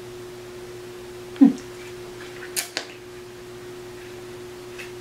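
Handling of a small cardboard lip-gloss box: a brief falling vocal sound about a second and a half in, then two sharp clicks a little past halfway, over a faint steady hum.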